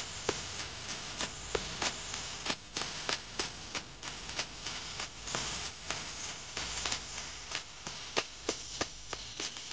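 Irregular sharp clicks and taps, a few a second, over a steady background hiss.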